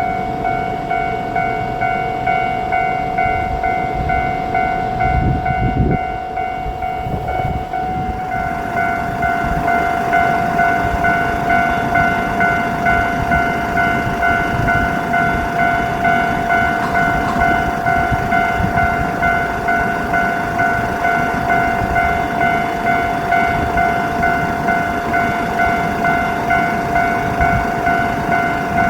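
Japanese level-crossing warning bell ringing in a steady, even clang rhythm, with a Tosa Kuroshio Railway 9640-series diesel railcar running through the crossing underneath it.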